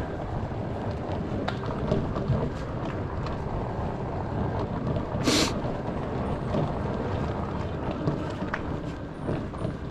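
Electric off-road Segway rolling over rough alley tarmac: a steady rumble of tyres and ride noise, with small knocks from bumps and a short burst of hiss about halfway through.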